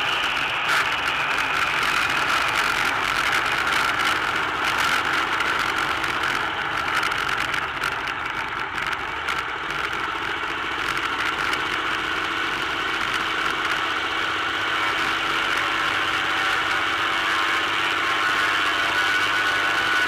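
Cessna 206 Stationair's six-cylinder piston engine and propeller running steadily at low power as the plane rolls out and taxis on a dirt airstrip, heard from a microphone outside the airframe.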